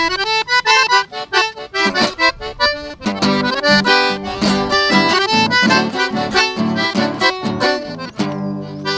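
Accordion playing a quick, lively melody of separate notes; from about three seconds in, rhythmic low chords pulse underneath it.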